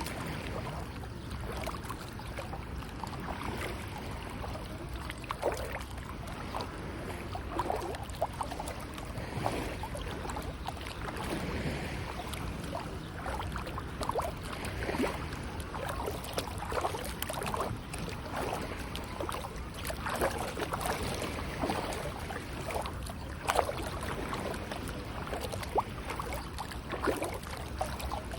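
Sea water lapping and splashing: a steady wash with many small, irregular splashes.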